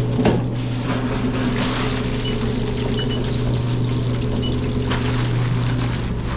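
Frozen french fries bubbling and sizzling hard in a commercial deep fryer's hot oil, with a single knock just after the start as the basket goes in. A steady low hum runs underneath.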